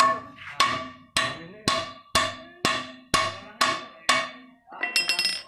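Steel hammer striking a truck driveshaft yoke about nine times, roughly two blows a second, each with a ringing metallic clang, as the bearing caps of a new cross joint (universal joint) are driven into place. A brief metallic rattle follows near the end.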